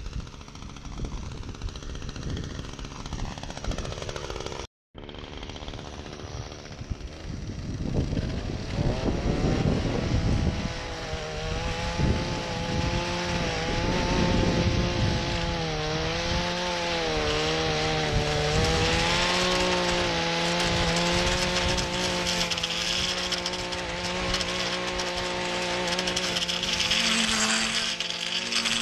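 Gas-powered string trimmer revving up about eight seconds in, then running at high throttle with its pitch wavering slightly as the line cuts grass along a concrete curb edge.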